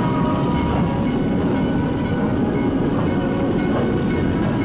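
Passenger train rolling along the track, a steady rumbling and rattling of the cars on the rails.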